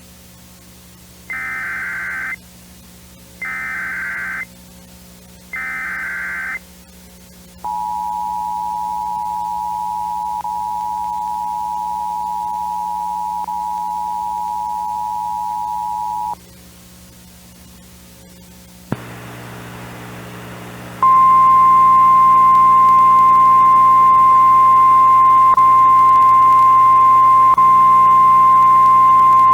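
Emergency Alert System tones: three one-second bursts of the SAME digital header with one-second gaps, then the two-tone attention signal, a steady dual-pitch buzz lasting about eight and a half seconds. After a short pause a click and a low hum begin, and a little later a loud steady single high tone comes on and holds.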